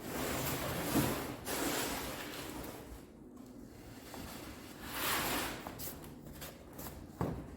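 Rustling and handling noise of a plastic sheet being moved about, in several noisy stretches, with a short knock near the end.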